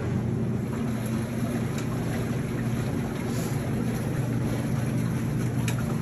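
ZENY twin-tub portable washing machine running: a steady electric-motor hum over a rushing, churning noise. It starts suddenly and holds level.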